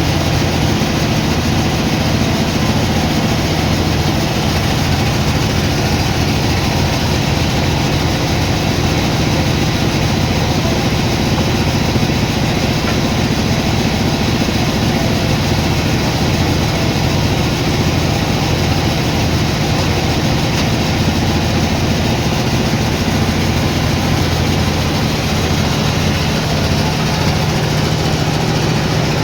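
Sawmill machinery running with a steady engine drone at constant speed; the pitch and level do not change.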